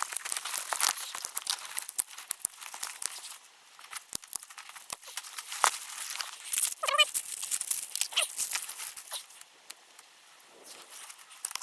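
Crackling and crumpling of dry material being handled while a campfire is made ready. It is dense with small sharp crackles for the first few seconds, then quieter, with one short wavering squeak about seven seconds in.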